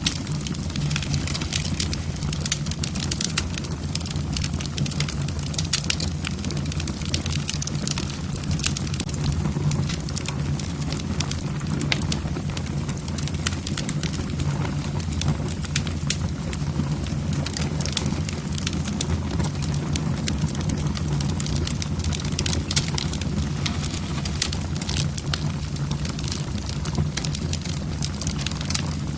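Logs burning in a fireplace, crackling and popping in dense, irregular snaps over a steady low rumble of the fire.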